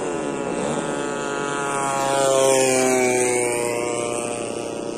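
Radio-controlled model warbird's motor and propeller flying past. The note swells to its loudest about halfway, then drops in pitch as the plane passes.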